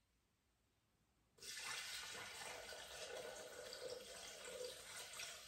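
Water poured from a glass measuring jug into a Thermomix's stainless-steel mixing bowl: a steady pour that starts about a second and a half in.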